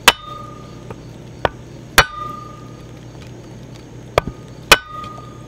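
Hammer blows on a block of wood, driving a new grease seal into the hub of an RV trailer brake drum: five sharp, irregularly spaced knocks, several followed by a short ring.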